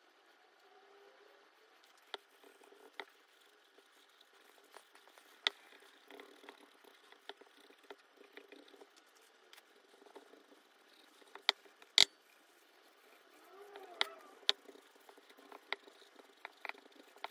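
Steel wool scrubbing the metal of an old blowtorch's tank and burner, a faint scratchy rubbing, with scattered sharp clicks and knocks as the metal parts are handled and set down; the loudest knock comes about twelve seconds in.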